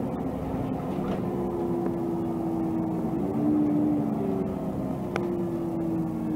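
Inside a Volvo 7000A articulated natural-gas (CNG) city bus under way: the engine and driveline give a steady whine over road noise, the pitch shifting slightly about three seconds in, with a faint rattle-click near the end.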